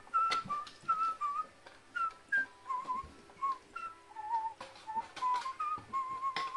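A whistled tune of short, slightly wavering notes, mixed with sharp knocks and clatters of a light plastic container being handled against a wooden perch.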